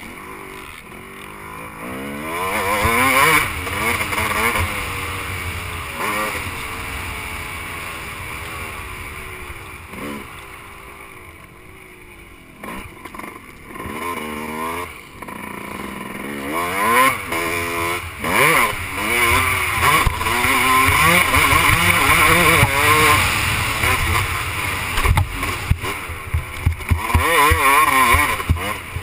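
Motocross dirt bike engine revving up and dropping back again and again as the rider accelerates and shifts around the track. It eases to a quieter spell about a third of the way through, then runs hard again, with a few sharp knocks near the end.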